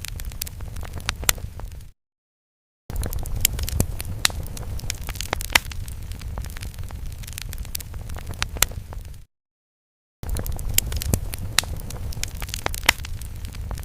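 Fire crackling sound effect: a steady low rumble peppered with sharp pops and crackles. It cuts to dead silence for about a second twice, about two seconds in and again about nine seconds in.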